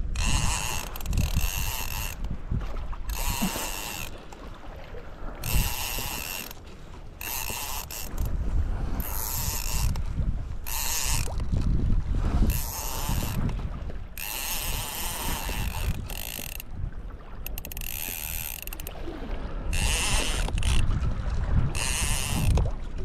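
Spinning reel's drag clicking off line in short ratcheting bursts, repeating about every second or so, over low wind rumble on the microphone.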